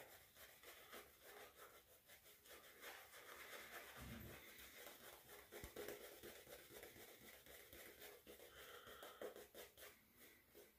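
Faint, quick, repeated swishing of a shaving brush working shave-stick soap into lather on the face.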